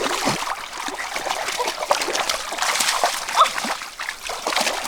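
Water splashing and trickling, a dense run of short irregular splashes.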